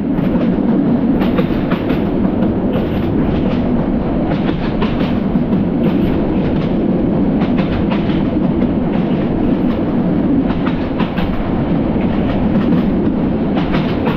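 Passenger train running at speed, heard from inside a coach: a steady rumble of wheels on rails with irregular clatter and knocks from the rail joints and the rattling carriage.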